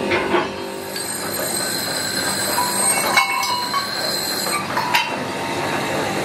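Steel top-link tubes clinking and knocking against each other as they are handled on a workshop floor, a few sharp clinks over steady workshop machine noise with a thin high whine.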